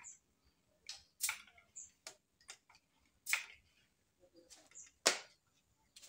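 Uklik pump air rifle being pumped twice: a series of clicks and clacks from the pump lever and mechanism, the two loudest about three seconds in and near the end.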